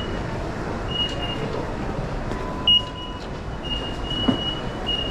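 Station concourse ambience: a steady wash of footsteps and crowd noise. Several short high beeps from automatic ticket gates as IC cards are tapped, one louder a little past halfway.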